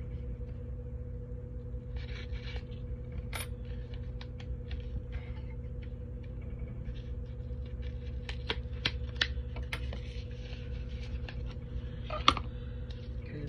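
Light clicks and handling noises of a makeup compact and its packaging being opened and turned in the hands, thickest in the second half, with one sharper click near the end, over a steady low background hum.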